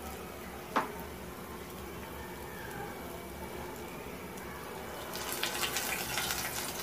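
Lentil-batter medu vadas deep-frying in hot oil, a steady sizzle. There is a short knock about a second in. A little after five seconds the sizzle turns louder and crackly as another vada is slipped into the oil.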